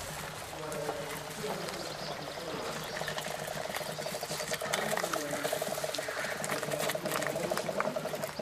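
Electric motors of a Remotec bomb-disposal robot running as its manipulator arm moves: a steady whir with a fast, even rattle that grows louder about halfway through and stops near the end.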